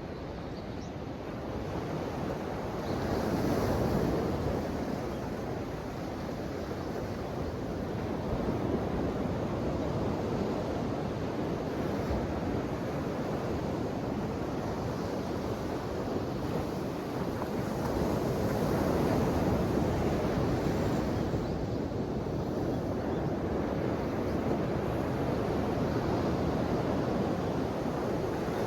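Ocean waves washing onto the shore, a continuous rush of surf that swells and eases in slow surges, loudest a few seconds in and again about two-thirds of the way through.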